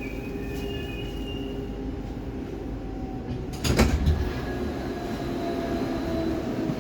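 Steady hum of a Baltiets metro train standing at a station platform with its doors open, heard from inside the car, with one short loud thump about three and a half seconds in.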